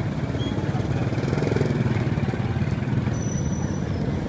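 A motorcycle engine running steadily close by, a low, fast-pulsing engine sound.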